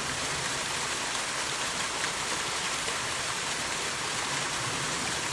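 Roadside waterfall: a steady rush of falling water.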